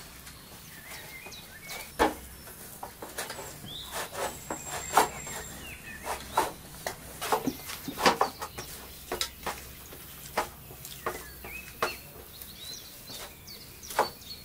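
Irregular sharp knocks and clicks, some fairly loud, with small birds chirping in short calls between them.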